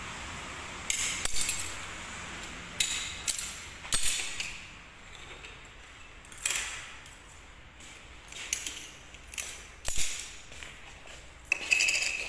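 Pieces of cut glass clinking and scraping as they are handled on the cutting table: about ten short, bright clinks and scrapes at irregular intervals, with one sharper click about ten seconds in.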